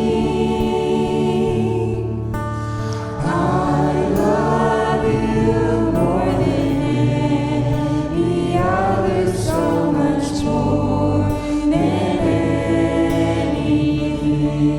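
Worship song with a group of voices singing over a band, with sustained keyboard and bass notes underneath.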